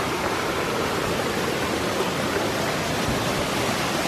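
Waterfall on a forest stream, a steady, loud rush of falling water.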